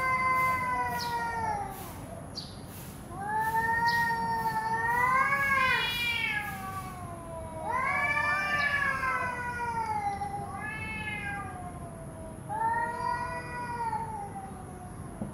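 Domestic cats yowling at each other in an aggressive standoff: a run of long, drawn-out yowls that waver up and down in pitch, with short pauses between them. This is the warning yowl of a territorial face-off that comes before a fight.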